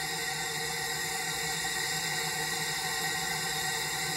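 Propane-air combustion chamber test rig running with a steady rushing hiss that holds level throughout.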